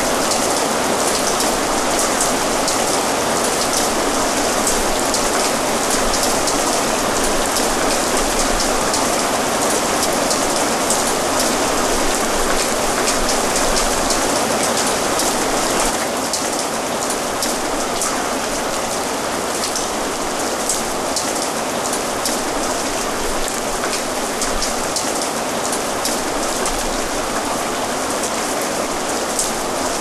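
Steady rain falling on a surface: a dense, even hiss with many fine drop ticks. The rain drops slightly in level about halfway through.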